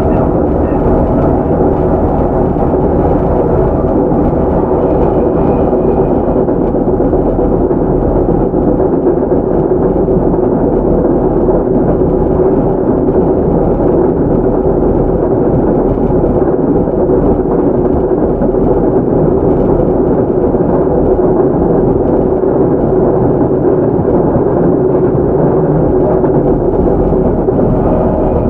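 JR Central 311 series EMU, heard from inside motor car KuMoHa 311-14, running at a steady speed: wheels rumbling on the rails under a steady whine from its MT61 traction motors and gearing.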